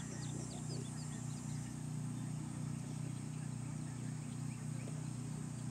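Steady low outdoor background hum, with a few faint short bird chirps in the first second and a half.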